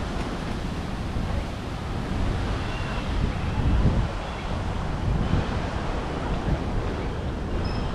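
Wind buffeting the microphone: a gusty low rumble that swells about four seconds in, with a few faint high chirps above it.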